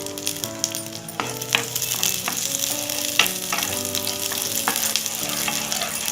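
Raisins frying in hot ghee in a pan, sizzling steadily, with a spoon stirring and clicking against the pan. Soft background music plays underneath.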